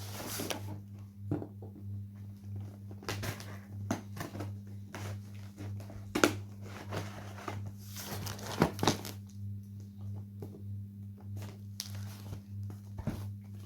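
A parcel being opened by hand: packaging torn and crumpled in irregular rips and rustles, over a steady low hum.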